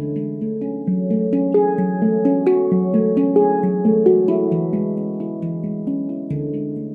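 A Veritas stainless-steel handpan tuned to an F# Pygmy scale, 18 notes, played with the fingertips. It gives a flowing run of struck notes that ring on and overlap. The playing is busiest around the middle and thins out near the end.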